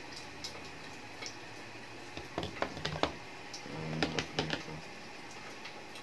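Clicks and light knocks from a plastic washing-machine water inlet valve being handled, in two short clusters: one about two to three seconds in and another about four seconds in.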